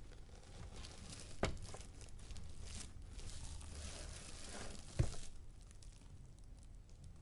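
Packaging being handled: rustling and crinkling, with a sharp knock about a second and a half in and another at about five seconds.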